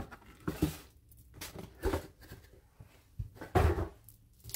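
A cardboard box lined with tissue paper being picked up and moved off a tabletop: a few short rustles, scrapes and knocks with quiet gaps between, the largest cluster near the end.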